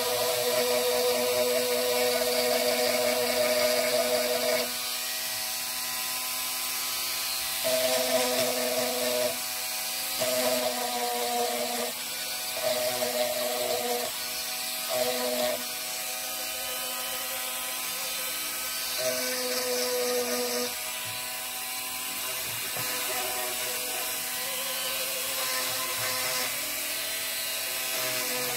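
Flexible-shaft rotary tool running steadily with a whine, louder in several spells of one to four seconds, as its bit polishes and details a cast resin sculpture.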